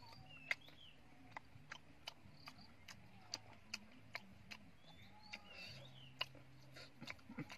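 Quiet eating sounds of fried fish: short crisp clicks from chewing and from wooden chopsticks picking at the fish, scattered irregularly, a couple each second.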